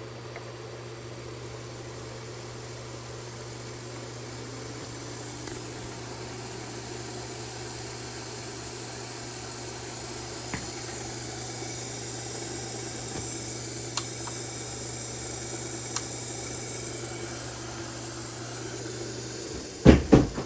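Electric motor run from a Leeson Speed Master DC motor controller, humming steadily while its whine rises slowly in pitch and grows louder as the speed is turned up. Several loud knocks come near the end.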